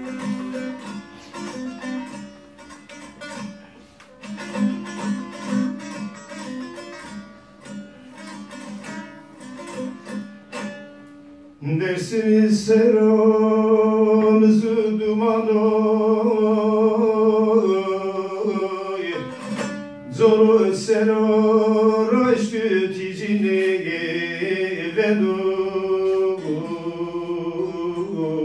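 A small saz played alone in plucked notes, then about twelve seconds in a man's voice comes in, singing in long held notes over the saz, louder than the playing alone.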